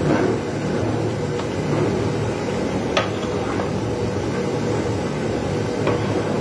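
Steady rumbling noise from a large aluminium pot of rice at a rolling boil over its fire. A sharp knock comes about three seconds in and a lighter one near the end, as the stirring paddle strikes the pot.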